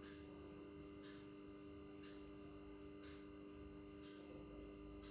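Near silence: a faint steady electrical hum, with faint ticks about once a second.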